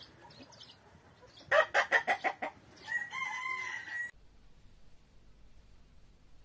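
A rooster crowing once: a quick run of short, sharp notes followed by a long held note, cut off abruptly about four seconds in.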